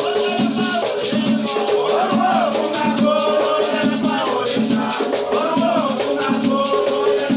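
Batuque ceremony music: voices singing a chant over the steady rhythm of shaken rattles and drum.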